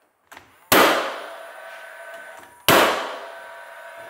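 Cordless nail gun firing twice, about two seconds apart, driving nails into wooden door casing. Each shot is a sharp crack followed by a ringing that dies away over a second or two.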